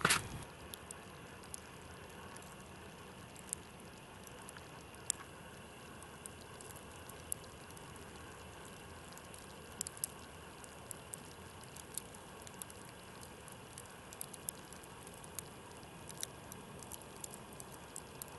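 Faint, steady outdoor hush with scattered light ticks and taps at irregular intervals.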